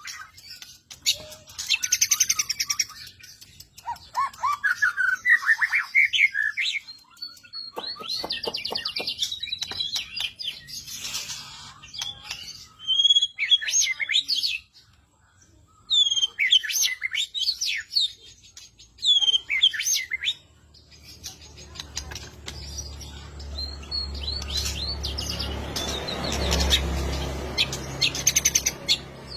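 Songbird song used as a masteran tutor recording for cage birds: quick chirps, rapid trills, rising and falling whistles and fast rattling click series, in varied phrases with short gaps. In the last third a rushing noise with a low hum swells up under the song.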